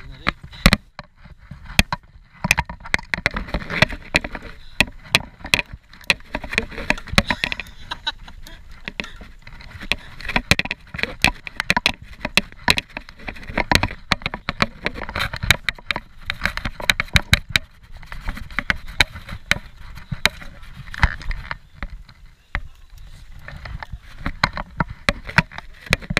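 Riding noise of a Scott Genius 740 full-suspension mountain bike on a rough dirt trail: constant irregular rattling and clacking from the bike over bumps and roots, over a low rumble of tyres and wind. It eases for a couple of seconds near the end.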